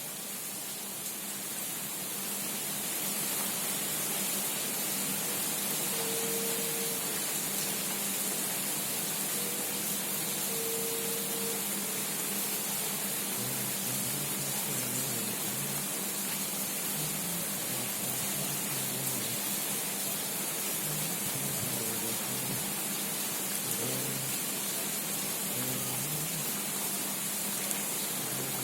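Heavy rain falling steadily: a dense, even hiss, with a faint low hum underneath.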